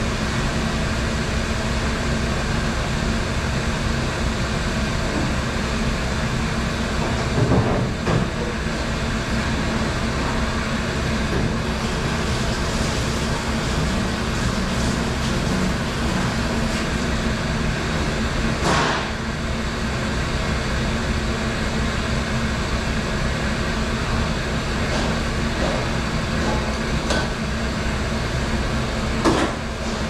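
Commercial rack-conveyor dishwasher and dish-room machinery running with a steady hum and rush, broken by three short clatters: one about a quarter of the way in, the sharpest a little past halfway, and one near the end.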